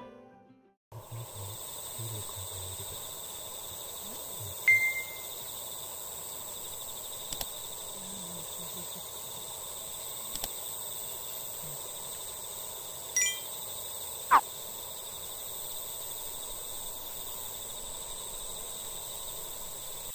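Evening outdoor ambience: insects chirring steadily in high, even tones, with a few short chirps and faint clicks, and one quick call falling in pitch about fourteen seconds in.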